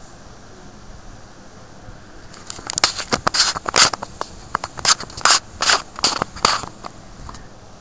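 Fingers handling a small mobile-phone part close to the microphone: an irregular run of sharp clicks and scrapes that starts a couple of seconds in and stops near the end.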